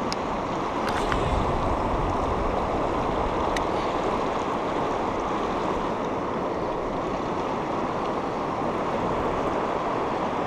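Steady rush of river current running over rocks and riffles, with a few faint clicks in the first few seconds.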